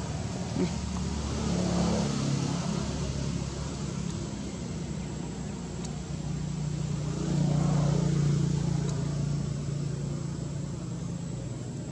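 Low engine hum of motor vehicles going by, swelling twice as one passes and then another.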